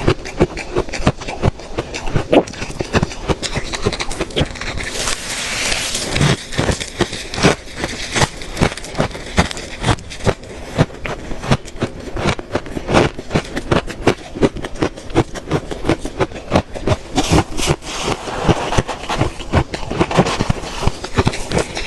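Close-miked crunching of freezer frost ice being bitten and chewed: a dense run of sharp, irregular crackles and crunches.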